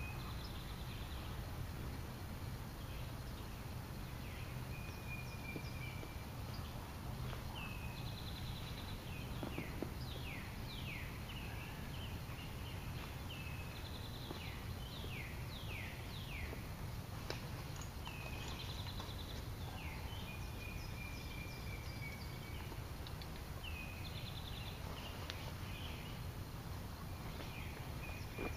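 Several wild songbirds singing: repeated whistled phrases, trills and quick falling notes, over a steady low background rumble.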